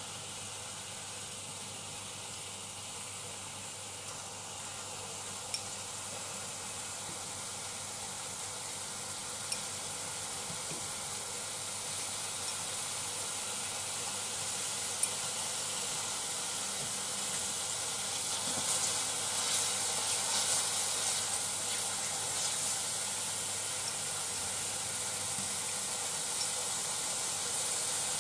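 Chicken pieces frying in oil in a frying pan: a steady sizzle that grows louder as more pieces go in, crackling harder near the end. A few short sharp clicks stand out.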